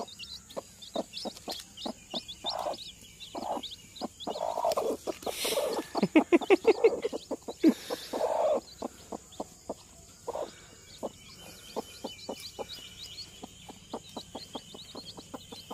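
A broody hen clucking in short low clucks among her newly hatched chicks, which peep in short high chirps. A louder, faster run of clucks comes about six to seven seconds in.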